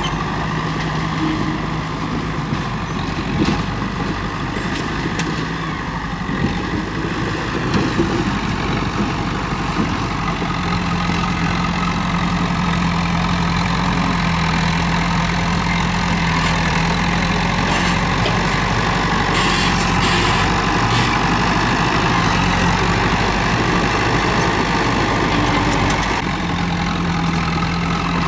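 Komatsu D31P bulldozer's diesel engine running steadily, with a few sharp knocks in the first third and the engine growing a little louder for most of the rest.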